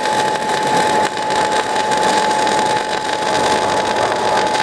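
MIG/MAG arc from a 500-amp semiautomatic welder burning steadily as the bead is run, a continuous hiss with a steady high tone running through it.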